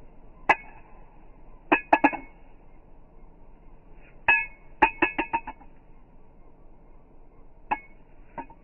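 Metal clacks and clinks of a balisong being flipped, the handles striking each other with a short ringing tone. They come as single clacks and quick runs of several: one about half a second in, a run around two seconds, another from about four to five and a half seconds, and two more near the end.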